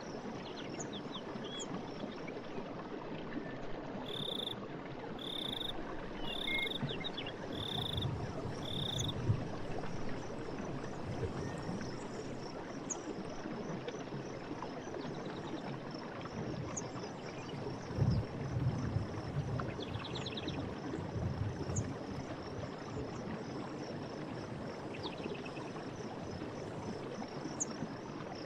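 Forest stream running with a steady rush of water and a few deeper gurgles. A short high call repeats five times, about a second apart, a few seconds in, with scattered faint chirps around it.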